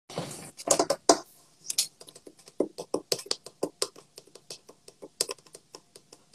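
Typing on a computer keyboard: a steady run of irregular light key clicks, a few a second, after a brief rustle at the start.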